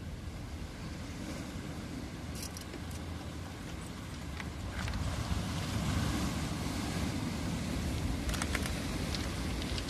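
Sea waves breaking on rocks and washing up a pebble beach, with wind rumbling on the microphone. The surf grows louder about five seconds in.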